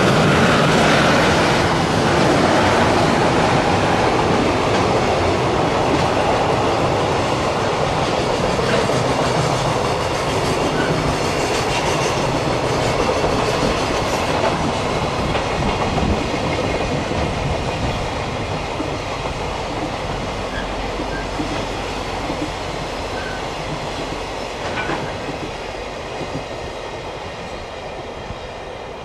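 Freight train of container wagons, hauled by an EH500 electric locomotive, rolling past with a dense steady rumble of wheels on rail and a few faint clacks. It slowly fades as the train draws away.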